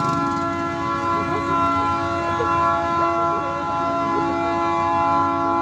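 GE C30-8W diesel locomotive's air horn sounding one long unbroken blast, a chord of several steady notes, over a low rumble.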